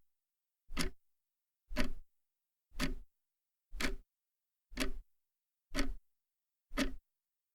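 Clock ticking sound effect: a sharp tick about once a second, seven in all, with dead silence between the ticks.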